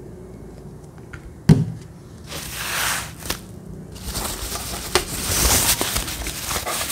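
Plastic packaging crinkling and rustling in bursts as a small fan is pulled out of its wrapping bag, after a single sharp knock about a second and a half in.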